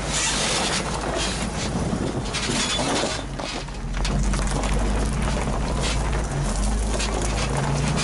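Nissan 4x4's engine running steadily at low revs as the truck crawls over the rocks, with the crunch and scrape of stone and gravel under the tyres.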